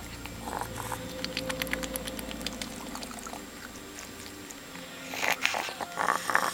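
A house rooster breathing with a raspy wheeze, the sign of a respiratory problem; two louder wheezing breaths come near the end. A run of light clicks comes earlier.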